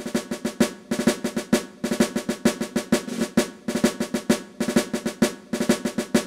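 Intro music of snare drum: quick strikes and short rolls in a repeating cadence.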